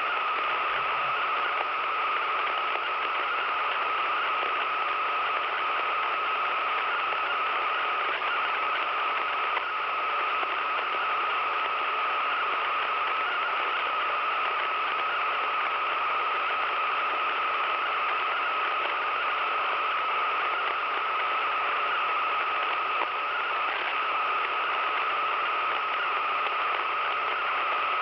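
A radio receiver's speaker giving out steady static hiss, with a constant high-pitched tone running unbroken through it.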